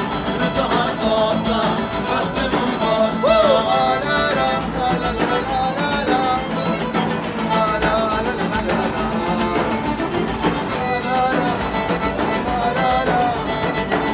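Live street band playing: violin over strummed acoustic guitars and a frame drum, with singing.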